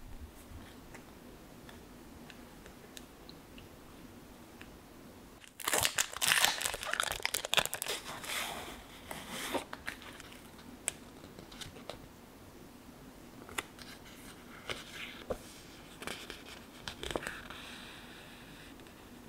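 Sticker-sheet packaging crinkling and rustling as the sheets are unwrapped and handled: a dense run of crinkling starts about five seconds in and lasts several seconds, then lighter scattered crackles follow.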